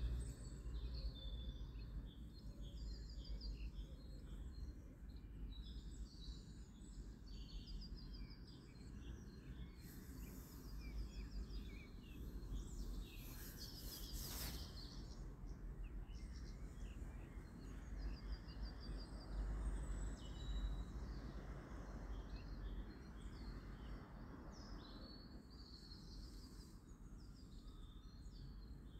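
Small birds chirping and singing on and off over a low, steady background rumble, with a brief rustling hiss about halfway through.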